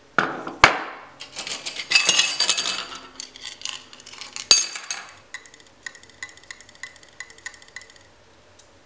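Metal parts of a partly disassembled 3.5-inch hard drive clinking and knocking against each other and the workbench as they are handled, with a sharp knock about half a second in and another clatter around two seconds in. After that comes a run of light, even ticks, about three a second.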